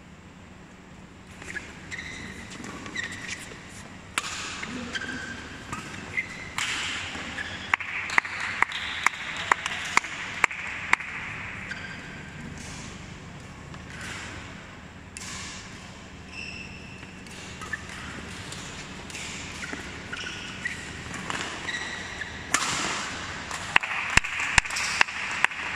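Badminton doubles rally: rackets striking the shuttlecock in quick runs of sharp hits about half a second apart, with shoes squeaking on the court floor. There are two fast exchanges, one about a third of the way in and another near the end.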